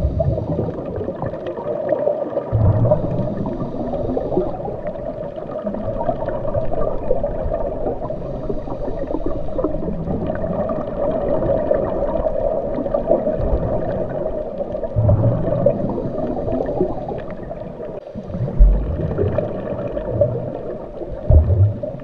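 Underwater ambience picked up by a submerged camera: a steady, muffled rush of moving water, broken by a few short low thumps at irregular intervals.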